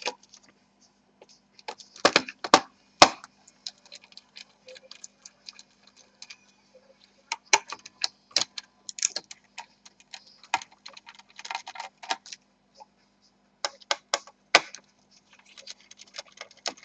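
Irregular small clicks and taps, some in quick clusters, of fingers and small metal parts as a laptop's copper heat pipe and cooler are worked loose from the motherboard, over a faint steady low hum.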